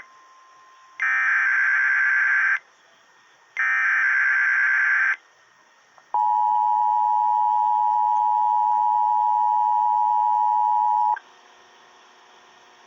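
Emergency Alert System header: two short bursts of warbling digital data tones, then the steady two-tone attention signal held for about five seconds, the start of a broadcast winter storm warning.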